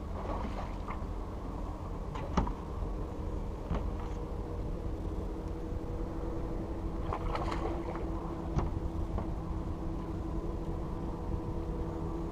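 Sharp knocks on an aluminium jon boat's hull about two and a half and eight and a half seconds in, with lighter clicks in between, over a steady low rumble and faint hum.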